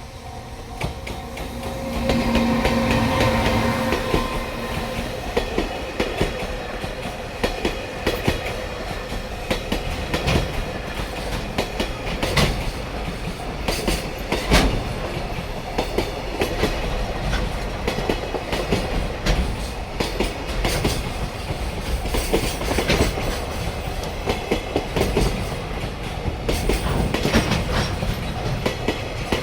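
Freight train of an EF210 electric locomotive and container wagons passing at speed, rising sharply about two seconds in as the locomotive arrives. Its wheels pound over the rail joints in a loud, continuous clickety-clack with heavy individual clanks. Steady tones in the first few seconds are typical of level-crossing warning bells.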